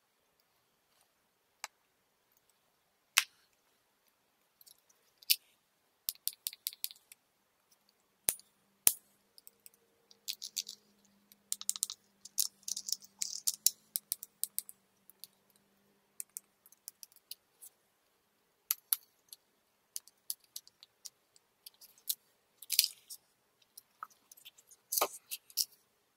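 Panasonic Lumix GH5 camera body being handled: sharp single clicks and quick runs of clicking as the articulating screen's hinge and the body's controls are worked, with some rustle from gloved fingers on the body.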